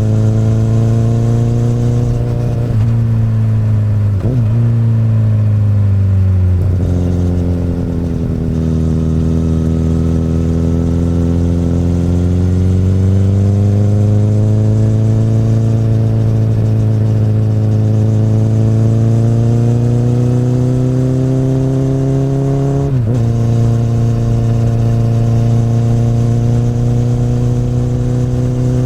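Honda CBR1000RR (SC59) 999 cc inline-four running through an Akrapovic exhaust under way. The engine note steps abruptly a few times in the first seven seconds and again about 23 seconds in, with a long steady rise in pitch between.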